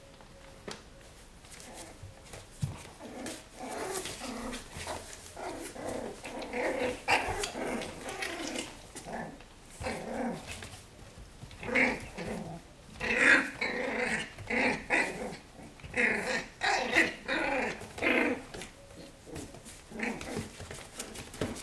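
Schipperke puppies growling in play as they wrestle, a run of short growls that starts about four seconds in, comes thickest in the second half and stops shortly before the end.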